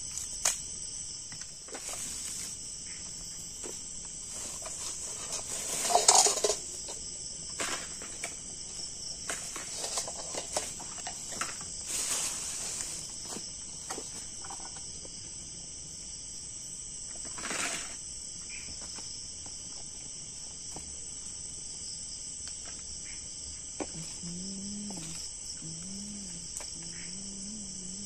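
Steady high-pitched chorus of crickets and other night insects, with scattered clicks and small knocks from handling gear and sticks at a campfire. A louder rustle comes about six seconds in, and a low wavering hum rises and falls several times near the end.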